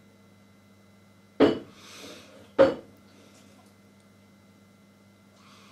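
Two sharp knocks about a second apart, over a faint steady hum.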